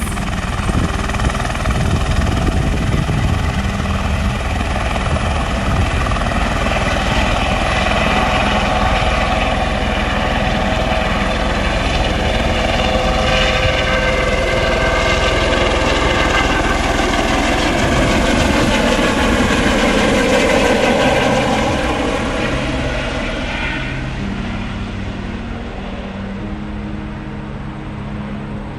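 Sightseeing helicopter taking off and flying away: a loud whine of engine and rotor. Its pitch wavers and dips about two-thirds of the way in, then the sound fades over the last few seconds.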